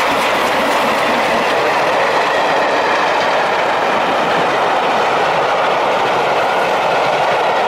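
Passenger coaches of a steam-hauled train rolling past, a steady rumble of wheels on the rails.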